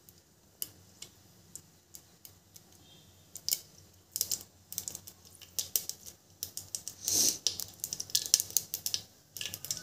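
Mustard seeds popping in hot oil in a pressure cooker: a few single pops at first, growing into quick, dense crackling from about four seconds in, with a short lull near the end.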